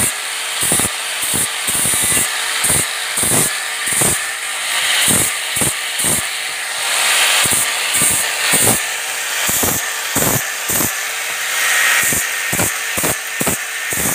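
A small motor running steadily under many irregular sharp knocks and scraping of a tool against wood.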